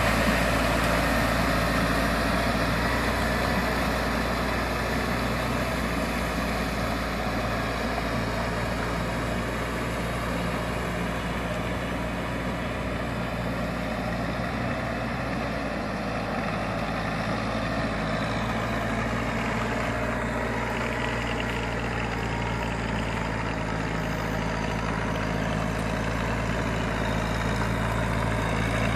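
Tractor engine running steadily as it pulls a rotary tiller through flooded paddy mud, growing a little fainter in the first few seconds as it moves away.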